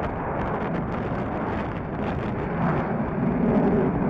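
Boeing F/A-18F Super Hornet's twin jet engines running during a display pass, a dense rumble that grows louder about two and a half seconds in.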